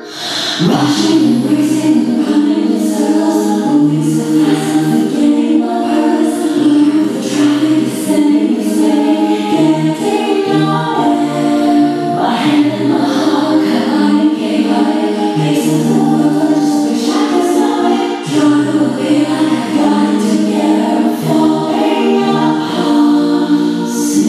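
Music for the dance: a song with layered, choir-like singing over held chords, with light percussive hits scattered through.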